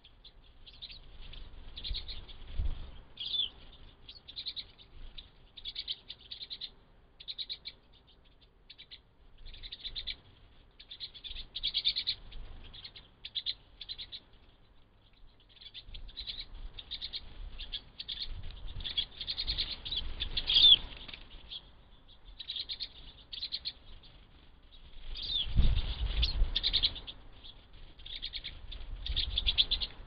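A flock of pine siskins calling almost without pause: rapid high twittering with a few longer rising notes. Bursts of fluttering wingbeats come as birds fly in and out, heaviest about two-thirds of the way through and again near the end.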